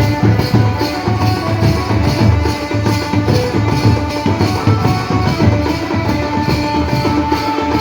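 Adivasi band vaja (village band party) playing a dance tune: a steady drum beat with cymbals under a melody line.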